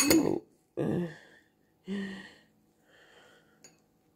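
Three short, breathy vocal sounds from a person, about a second apart. A metal fork clicks against the bowl at the start and once more near the end.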